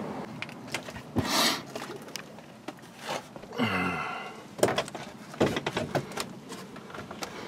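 Scattered knocks, thumps and rustling of someone moving about and handling things in a cramped attic, with a short sound that falls in pitch near the middle.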